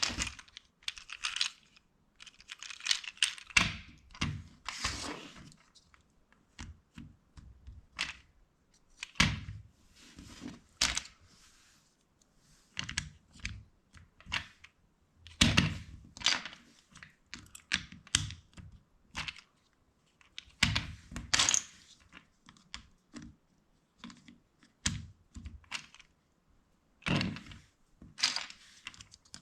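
LEGO plastic bricks being handled and pressed together: irregular clusters of sharp clicks and clatters, with a brief patch of softer shuffling noise partway through.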